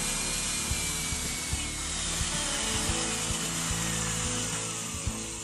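Power drill driving a bi-metal hole saw through a wooden door, a steady cutting noise with a motor whine that slowly falls in pitch under load. It stops right at the end. Background music plays throughout.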